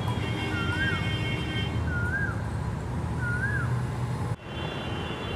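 Street background: a steady low traffic rumble, over which a short whistled note rises and falls three times, about once every 1.2 s. The sound cuts off abruptly about four seconds in and gives way to a different background.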